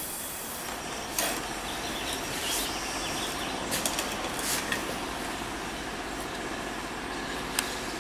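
Steady background noise with a few light clicks and taps, about a second in and scattered after, as a cleaning rod is drawn out of a rifle bore and the rifle handled.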